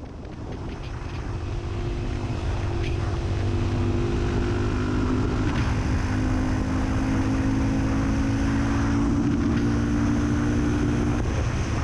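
Honda CRF250L single-cylinder motorcycle engine running at a steady cruising speed, with wind and road noise, fading in over the first two seconds.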